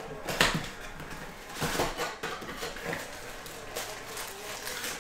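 Hands handling a Topps Chrome Sapphire cardboard trading-card box: rubbing and scraping of cardboard, with a couple of short knocks about half a second and two seconds in.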